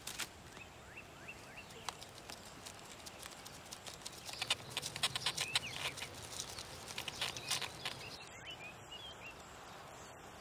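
Quiet woodland ambience: scattered crackles and rustles, like leaves and twigs underfoot, busiest in the middle, with a few faint short bird chirps near the start and again near the end.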